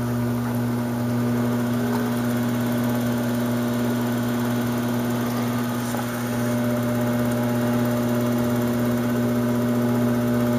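Electric pottery wheel motor running at a steady speed while clay is thrown on it: a constant low hum with an even overtone above it.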